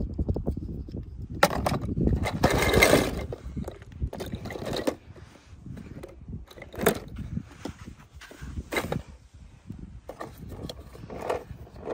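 Toy cars scraping and clattering as they are rolled and handled over a rough surface: irregular clicks and knocks, with a longer scrape about two to three seconds in.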